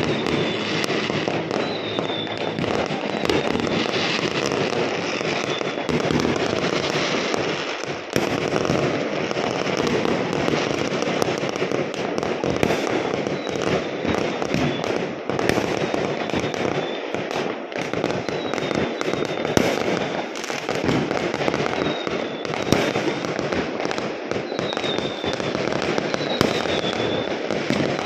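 Many fireworks and firecrackers going off at once all around: a continuous din of bangs and crackling, with short high whistles now and then.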